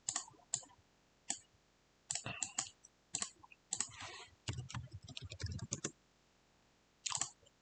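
Light, irregular computer mouse clicks and keyboard keystrokes, with a quick run of typing past the middle.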